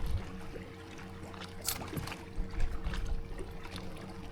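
A steady hum from equipment on a bass boat, with a few knocks and handling noises, the loudest about two and a half seconds in.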